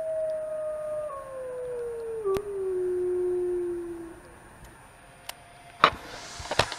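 A single long wolf howl, held on one pitch for about a second, then sliding steadily lower before it fades out about four seconds in.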